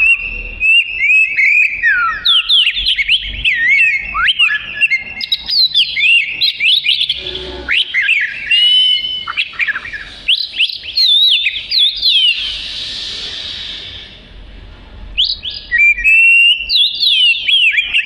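Oriental magpie-robin (kacer) singing a loud, fast, varied song of whistled notes that sweep rapidly up and down. About two-thirds of the way in there is a harsh hissing stretch and a short pause before the song resumes.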